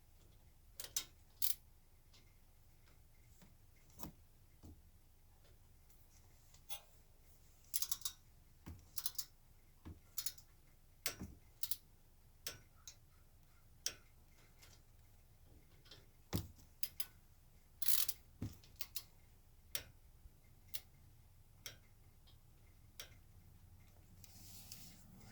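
Scattered light clicks and taps of tools and brake parts being handled during a front brake job. They come one or two at a time at no regular beat.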